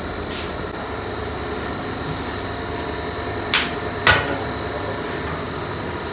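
Factory machinery running steadily with a thin high whine, and two sharp knocks about half a second apart a little past the middle, the second one louder.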